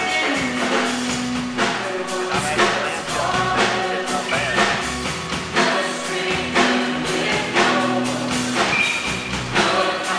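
Live worship band playing a song, with voices singing over guitars, a drum kit and congas to a steady beat.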